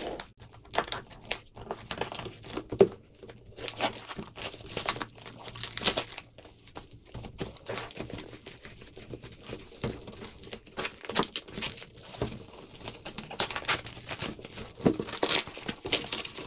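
A cardboard shipping parcel being torn open by hand: packing tape and cardboard ripping and clear plastic wrapping crinkling, in uneven spurts with the odd sharp rip.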